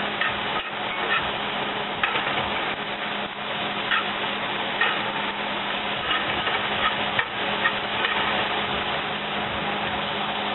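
Shredded cauliflower and vegetables sizzling in a cast-iron skillet while a spatula stirs and scrapes through them, with short scrapes now and then. A steady low hum runs underneath.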